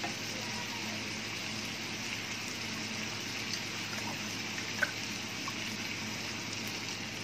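Chicken broth being poured into a hot pan of chicken and vegetable pot pie filling, which hisses steadily as it simmers, with a light click about five seconds in.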